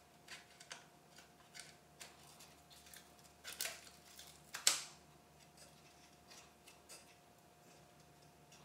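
Small clicks and rattles of a PCIe riser card being handled and fitted onto a graphics card, with one sharp click about four and a half seconds in, over a faint steady hum.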